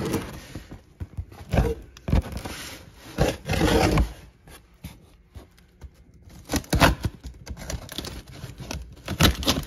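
Packing tape on a cardboard box being slit open with a thin metal pick: scraping and tearing along the seam. Later come a few sharp knocks as the cardboard box is handled.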